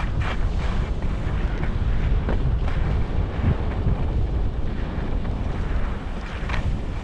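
Wind buffeting the microphone of a camera carried by a skier going downhill, a heavy rumble, with the steady hiss and scrape of skis running over groomed snow and a few brief louder scrapes.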